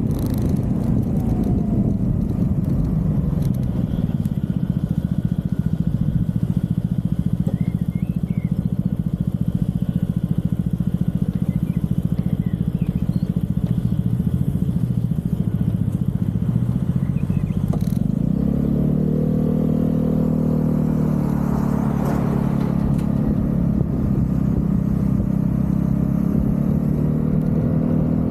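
Vespa GTV 300 scooter's single-cylinder four-stroke engine running under way. Its pitch rises and falls a few times about two-thirds of the way through, then climbs again near the end.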